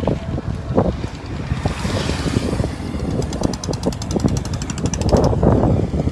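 Wind buffeting the microphone of a bicycle being ridden, over a low rumble from the road. From about halfway in, a rapid, even ticking, like a bicycle freewheel while coasting.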